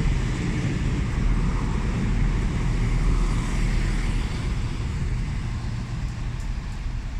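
Class 172 Turbostar diesel multiple unit running: a steady low engine rumble that eases off slightly towards the end.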